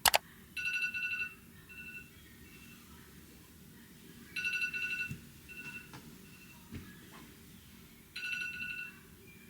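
Electronic alarm tone ringing in short trilling bursts, three times, about every four seconds, with softer tones trailing the first two bursts. A few faint low thumps in between.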